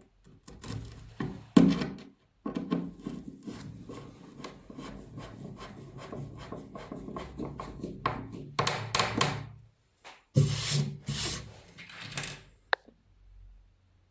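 Wood rubbed against an abrasive in quick rasping strokes, about five a second, then two louder, longer scraping passes later on.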